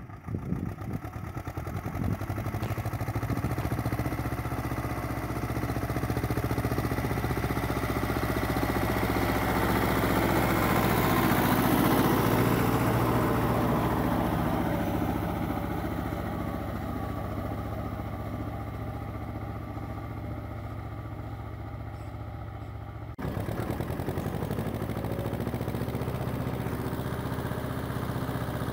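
Vladimirets T-25A tractor's air-cooled two-cylinder diesel running under load while pulling a two-furrow plough. It grows louder as the tractor comes past, peaking about twelve seconds in, then fades; after a sudden cut about two-thirds through it is heard steady from the driver's seat.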